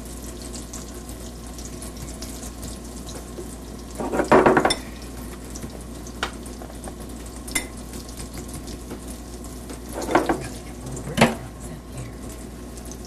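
A fork clinks and scrapes against a plate a few times while eggplant slices are dredged in breadcrumbs, the busiest clatter about four seconds in and single clicks near the end. Under it runs a steady sizzle of eggplant slices frying in oil.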